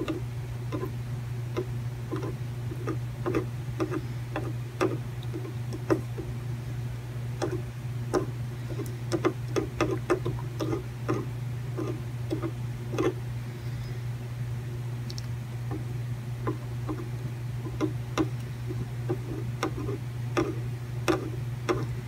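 Irregular small clicks and ticks from drag-soldering the pins of a laptop LVDS display connector with a soldering iron, over a steady low hum.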